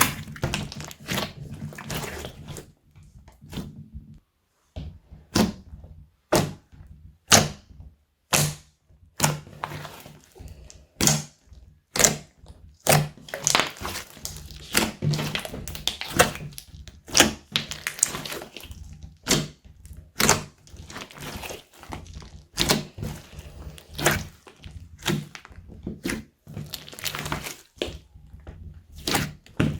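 Slime being squeezed and kneaded by hand, giving a string of sharp wet pops and clicks as trapped air bursts, about one or two a second with a short pause about four seconds in.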